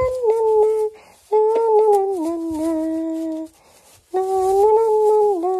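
A person humming a slow tune: three long held phrases, each about two seconds, stepping gently between notes, with short breaks between them. Hay rustles faintly underneath.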